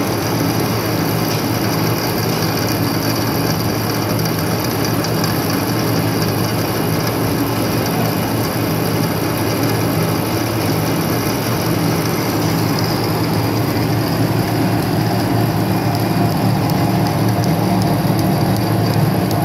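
Wet multi-die wire-drawing machine running steadily, its motor and stepped capstans drawing steel wire through the dies, giving a continuous mechanical hum with a low drone.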